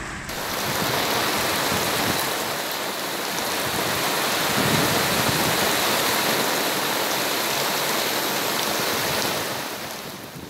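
Heavy tropical rain squall pouring onto the sea and the sailboat, a dense steady hiss that eases off near the end.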